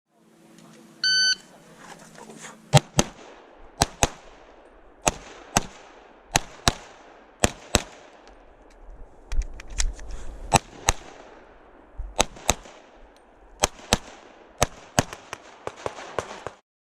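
Shot timer beeps once briefly, then a Glock 32 pistol in .357 SIG fires a long string of shots, mostly in quick pairs about a third of a second apart, with short pauses between pairs.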